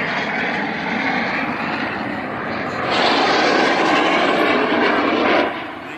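Roar of a formation of aerobatic display jets flying over, trailing smoke. It jumps louder about halfway through and drops off suddenly near the end.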